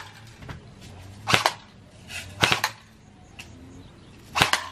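Three sharp shots from a target-shooting game gun, spaced about one to two seconds apart.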